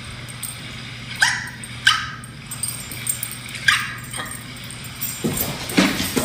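A dog barking at the window, single sharp barks a second or two apart, louder near the end.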